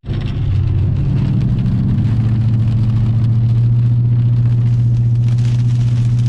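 Vehicle engine running with a steady low hum, heard from inside the cab. The hum rises slightly in pitch over the first couple of seconds, then holds steady. The sound drops out for an instant right at the start.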